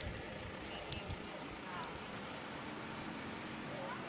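Insects chirping in a steady, high, finely pulsing chorus, with a faint click about a second in.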